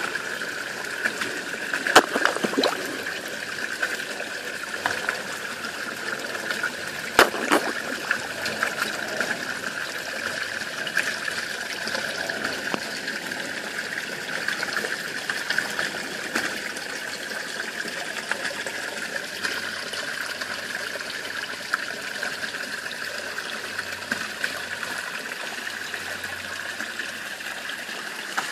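Steady trickling of running water into a pond, with a couple of sharp splashes about two and seven seconds in as sturgeon break the surface at the edge.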